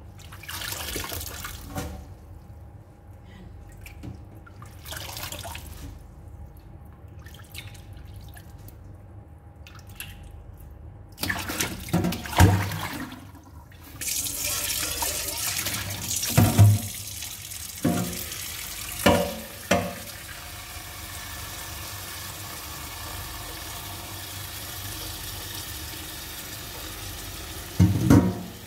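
Water sloshing as leaves are washed by hand in a bowl of water in a stainless steel sink. About halfway through, a kitchen tap starts running steadily into the sink. A metal bowl clanks against the sink several times, loudest just before the tap starts.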